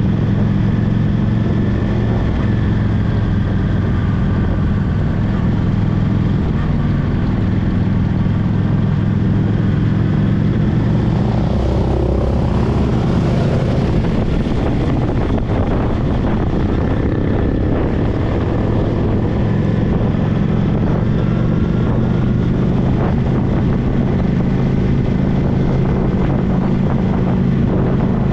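Honda Shadow VT750 V-twin motorcycle engine running steadily at cruising speed on a gravel road, with tyre and wind noise over it. About halfway through, the engine note drops back for a few seconds while a brighter hiss rises, then it settles again.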